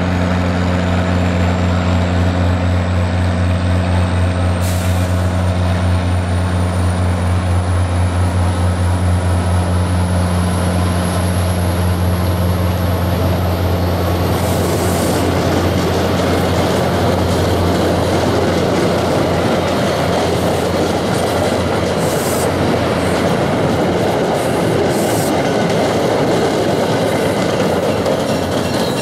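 MBTA diesel commuter trains: a steady low diesel hum that fades after about eighteen seconds, under the rumble and clatter of passenger coaches rolling on the rails. The rolling noise grows louder through the second half as a second train pulls in on the adjacent track, and a faint high whine rises in pitch over the first half.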